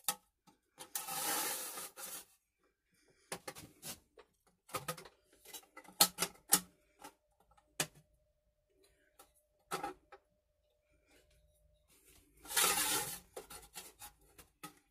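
Aluminium sheet and a steel combination square being handled and squared up against angle-iron jaws in a vise: two longer scraping rubs, one about a second in and one near the end, among scattered light clicks and taps of metal.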